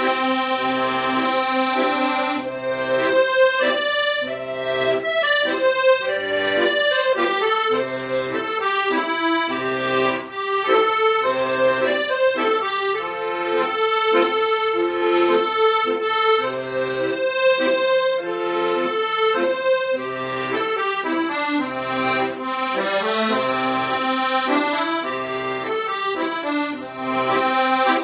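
Instrumental Korean trot music: an accordion plays a slow melody over an even bass and chord accompaniment, with no singing.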